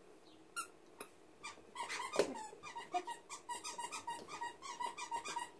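Rubber squeaky dog toy squeaking: a few single squeaks, then from about two seconds in a quick run of squeaks, about five a second.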